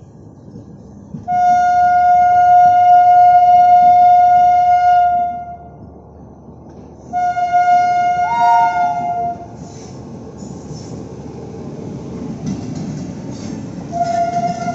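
Indian Railways electric locomotive sounding its air horn as it hauls a passenger train out of the station. There is a long blast of about four seconds, then a shorter one with a higher second tone joining partway through, and a third starting near the end. Between the blasts the train rolls past with a low rumble and wheels clicking over the rails.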